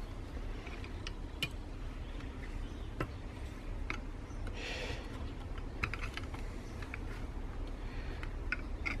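Scattered light clicks and ticks of a flat-blade screwdriver prying at the plastic retaining tabs of a Harley-Davidson Daymaker LED headlight, with a brief scrape about halfway through. A low steady hum sits underneath.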